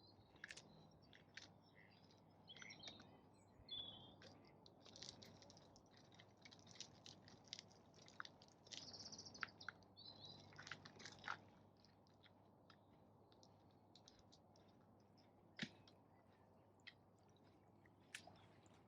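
Faint clicking and crunching of ducks feeding, with quick bill snaps coming thick for the first ten seconds or so, then only a few scattered clicks, over light bird chirps.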